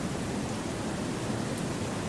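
Wind blowing steadily through forest trees: an even, unbroken rushing hiss with a deep low rumble.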